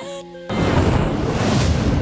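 A short stretch of background music cuts off about half a second in, replaced by loud, steady low rumbling noise of wind buffeting the microphone outdoors.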